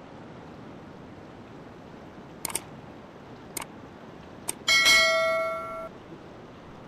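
Three light clicks, then a metal object is struck once and rings with a clear, bell-like tone for about a second before cutting off abruptly, over the steady rush of a river.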